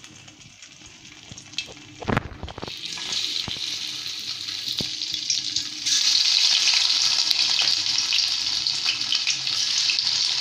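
Hot oil in a karahi sizzling as patties of soaked bread, noodles and cornflour are dropped in by hand, the sizzle building after a knock about two seconds in and jumping louder about six seconds in as more patties go into the oil.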